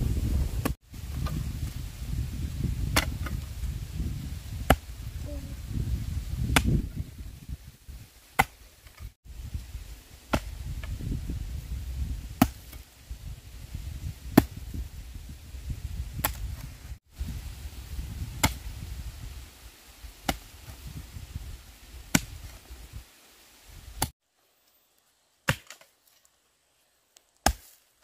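Repeated sharp chopping strikes, about one every two seconds, over a low rumble. Near the end the rumble drops away and only two more strikes follow.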